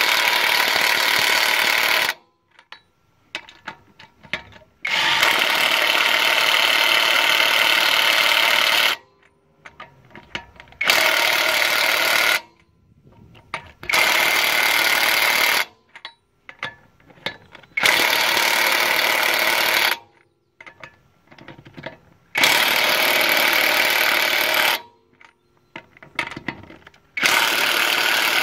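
AutoJare 20V brushless cordless 1/2-inch impact wrench hammering on lug nuts of a steel wheel in a series of bursts, each about two to four seconds long, with short pauses of small clicks and rattles as the socket is moved to the next nut.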